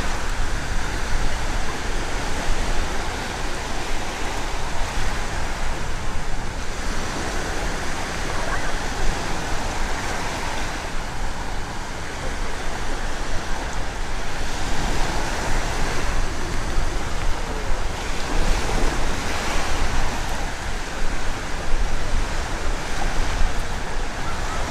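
Black Sea surf breaking and washing up the beach, swelling and easing every few seconds, with wind rumbling on the microphone.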